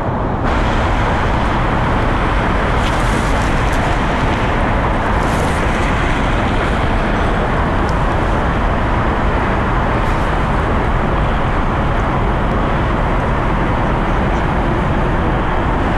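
Steady roar of road traffic on a nearby freeway, with no single vehicle standing out; it gets slightly louder about half a second in.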